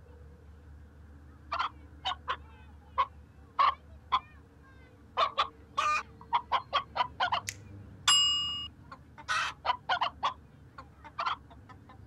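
A domestic hen clucking in short, irregular clucks that begin about a second and a half in and come thick and fast after five seconds. About eight seconds in there is one louder, held note lasting about half a second.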